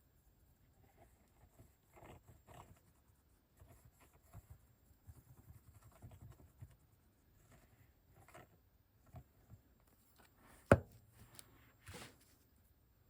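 Paper and card being handled on a table while a waterfall tab mechanism is put together: scattered soft rustles and light taps, with one sharp knock about two-thirds of the way through.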